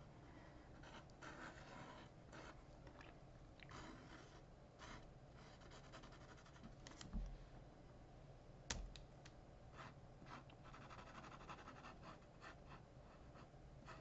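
Faint scratching of a Sharpie marker pen on paper in short, repeated strokes. About halfway through come two soft thumps, a second and a half apart.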